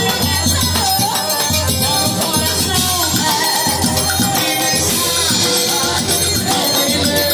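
A forró pé-de-serra trio playing live: a zabumba bass drum keeps a steady beat under an accordion melody, with jingling high percussion on top.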